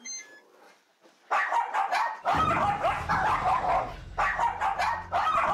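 Small dog barking fiercely at a newly arrived visitor, rapid continuous barks starting about a second in.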